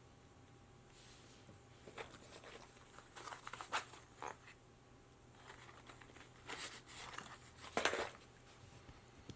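Scattered crinkling and clicking handling noises from small parts and tools being worked by hand. They come in short clusters about two seconds in, around three to four seconds, and loudest near the end.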